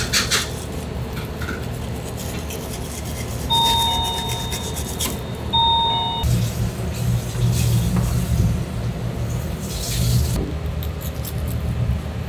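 A knife working through pufferfish fillet on a plastic cutting board, with a few short clicks and scrapes of the blade against the board over a low steady rumble. About three and a half seconds in, an electronic beep sounds twice, first held for over a second, then briefly.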